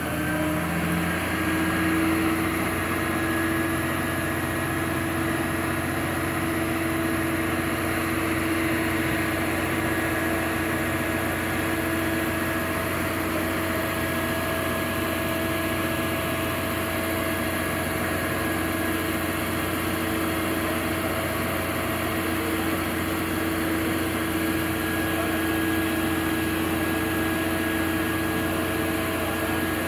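Refuse collection truck's diesel engine idling steadily, with a steady hum over the engine note and no loud knocks or bangs.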